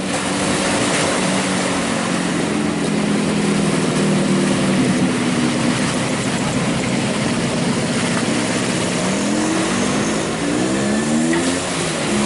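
An engine running steadily over a constant wash of surf and wind, then revving up in a series of rising pitches about nine to eleven seconds in.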